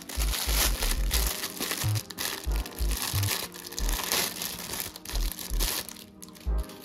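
Thin clear plastic bag crinkling as it is pulled open and a small plastic toy figure is worked out of it, easing off near the end. Background music with a bass beat plays underneath.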